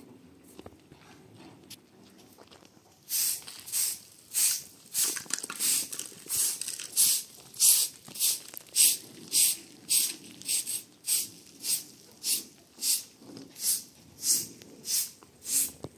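Rhythmic scraping strokes, about two a second, starting about three seconds in.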